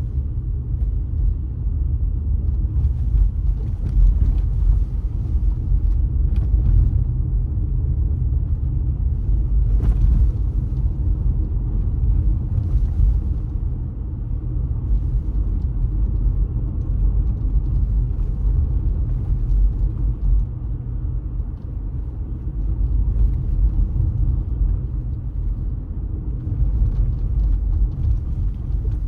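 A car driving along city streets. Its engine and tyres make a steady low rumble, with a few faint light clicks and rattles.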